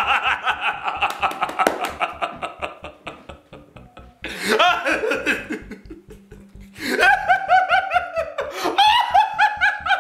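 A person laughing hard in three bouts, each a quick run of repeated 'ha' pulses, the last two high-pitched. Background music with a steady low beat plays underneath.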